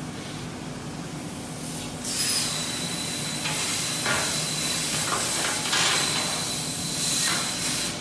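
A CNC press brake running with a steady low hum; from about two seconds in a loud hiss with a thin high whine and a few scrapes of steel sheet against the tooling, stopping suddenly near the end.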